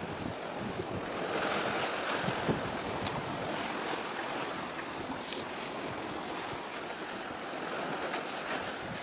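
Steady wash of sea waves with wind buffeting the microphone.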